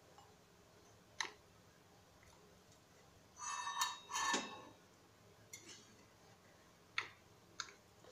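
Carrot oil squeezed from a plastic nozzle bottle into a metal measuring spoon: a rough squirting sound lasting about a second, a little past three seconds in, with a few light clicks and taps before and after.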